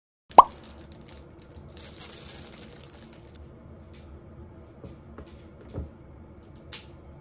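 White asparagus spears set down and arranged on a plastic cutting board: one sharp knock about half a second in, then light taps and handling sounds over quiet room tone.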